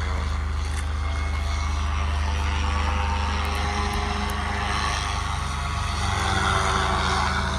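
Paramotor engine and propeller running steadily, a little louder toward the end.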